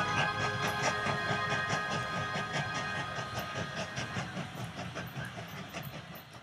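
Battery-powered toy train running on plastic track: a steady motor whir with the wheels clicking over the rail joints about five times a second, fading away over the last few seconds.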